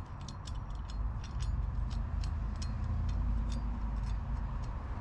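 Irregular light metallic clicks and ticks of small hardware being handled as nuts are started by hand onto the countersunk bolts holding a belt pulley to a Razor MX650 rear wheel hub. A steady low rumble sits underneath.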